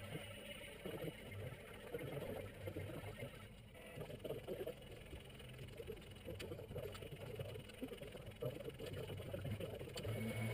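Sped-up time-lapse workshop audio: a jumbled, fluttering chatter of garage noise and clatter with no single clear source, and a few brief clicks.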